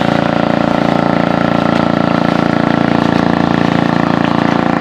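A small engine running steadily at idle, with an even, unchanging pulse.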